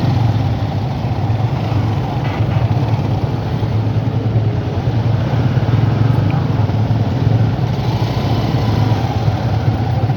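Motor vehicle engines running steadily, a constant low rumble of traffic.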